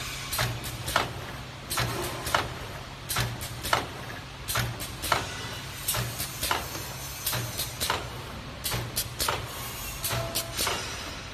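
Automatic pre-open bag making machine running: a rhythmic clatter of sharp clicks and knocks, with a low pulse repeating about every second and a half as it cycles.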